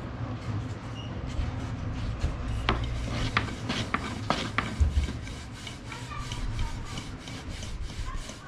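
Pide dough being worked by hand on a wooden board: rubbing and rasping with a run of light clicks and knocks, a few sharper ones in the middle, then softer ones about three to four a second.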